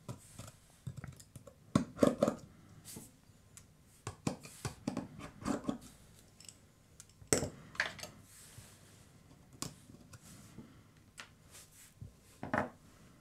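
Irregular small clicks and taps of a precision screwdriver and tiny screws as the screws of an iPhone XR's battery-connector bracket are loosened and laid aside, with a few sharper clicks among them.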